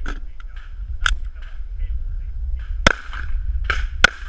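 Pistol shots: four sharp cracks one to two seconds apart, the last two the loudest, each with a short ringing tail.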